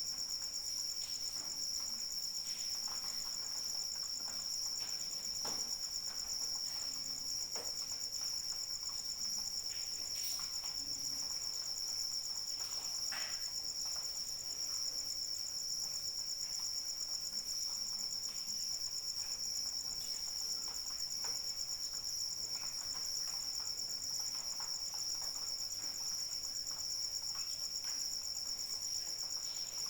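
Crickets trilling in a steady, continuous high chorus, with faint scattered drops of rain pattering beneath.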